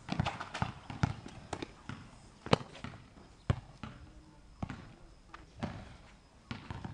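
Basketball bouncing on an asphalt outdoor court: a quick run of dribbles in the first two seconds, then single bounces about once a second, the loudest about two and a half seconds in.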